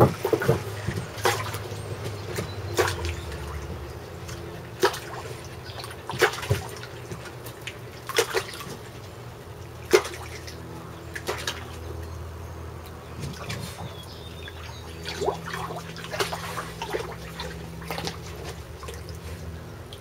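Shallow paddling-pool water splashing and dripping as several dogs wade through it and dip their muzzles in, with irregular sharp splashes every second or so.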